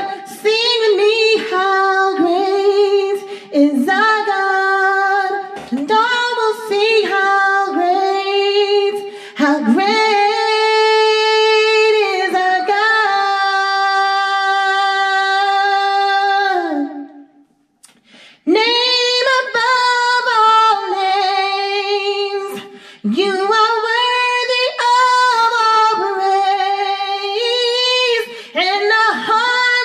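A woman singing a cappella, with quick pitch runs and one long held note about ten seconds in, then a brief pause before she sings on.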